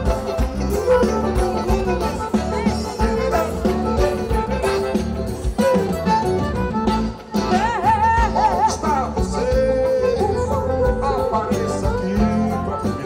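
Live forró band playing: accordion, zabumba drum, electric bass and guitar and drum kit over a steady beat, with a singer's voice. The music dips briefly about seven seconds in.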